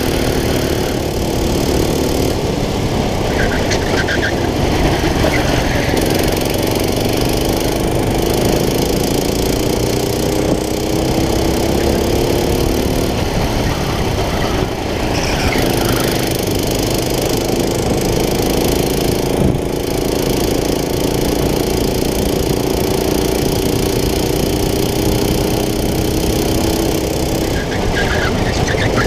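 Kart engine heard from on board at racing speed, its pitch climbing steadily along each straight and dropping sharply each time the throttle is lifted for a corner, several times over, with steady wind and track noise underneath.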